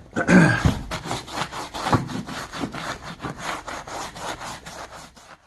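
Small hand brush scrubbing carpet in quick, rhythmic back-and-forth strokes, agitating the filtration soil lines along the wall.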